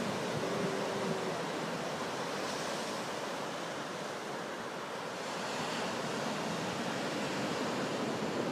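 Ocean surf breaking and washing up on a sandy beach: a steady rushing wash of waves.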